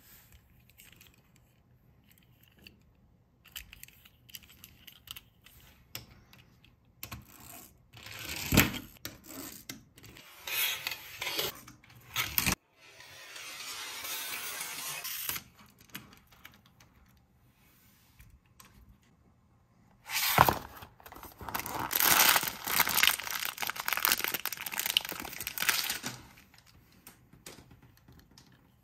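Toy packaging being handled and opened: scattered clicks and rustles, a steady tearing sound for about three seconds near the middle, then a longer stretch of loud tearing and crinkling.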